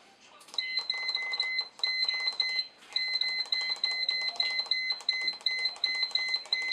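Salton electric pressure cooker's control panel beeping rapidly, about four short beeps a second with a couple of brief pauses, as the cooking-time button is pressed to step the timer up toward 45 minutes.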